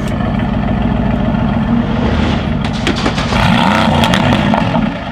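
Straight-piped Mercedes-AMG GT S twin-turbo V8 running loud and revving, with a run of sharp exhaust crackles about halfway through as the engine swells louder.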